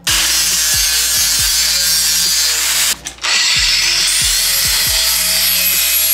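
Angle grinder grinding steel, a loud high-pitched rasp in two passes with a short break about three seconds in.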